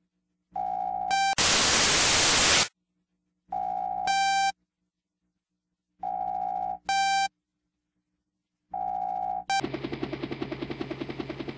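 Electronic radio-style signal tones, repeated four times with silences between: a steady tone for about half a second, then a short higher beep. After the first of them comes a loud burst of static lasting over a second. Near the end a steady low hum with rapid pulsing begins.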